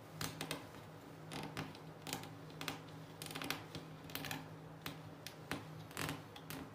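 Cotton thread being wound around the nails of a string-art board and pulled taut: a run of small, irregular ticks and scrapes as the thread catches and slides over the nail heads, over a faint steady low hum.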